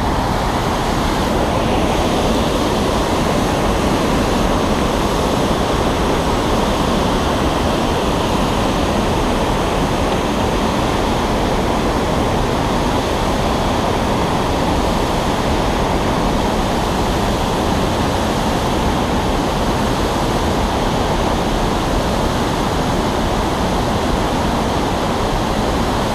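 River rapids rushing over rocks close to the microphone: a steady, loud, unbroken rush of whitewater.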